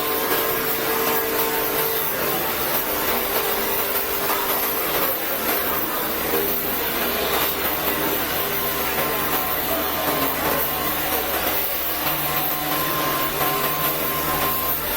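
Oxy-fuel cutting torch hissing steadily as it cuts 20 mm steel plate, with steady hum tones from the machine underneath.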